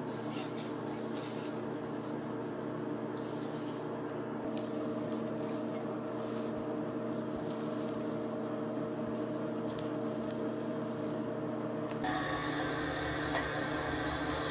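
A steady hum of several held tones, with faint scraping and ticking from a whisk and spatula stirring thick chocolate batter in a stainless steel bowl. The hum changes about twelve seconds in.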